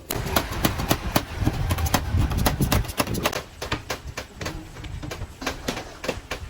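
Rapid, irregular knocking and clattering over a steady, noisy rumble; the rumble is heaviest in the first half and eases after about three and a half seconds.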